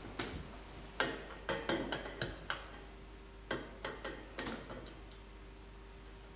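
Sharp metallic clicks and taps, about a dozen at irregular intervals over four seconds, the loudest about a second in: a monstrance being handled as the host is set into it for exposition.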